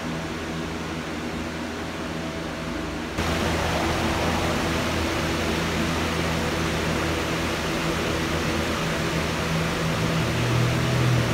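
Steady background hiss with a faint low hum, the noise of a room. It gets louder about three seconds in.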